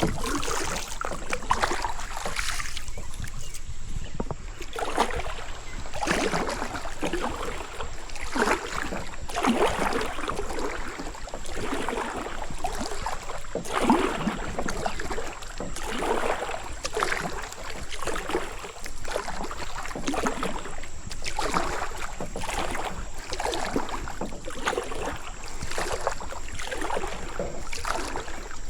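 Kayak paddle strokes, the blades dipping and splashing in a steady rhythm about every second and a half.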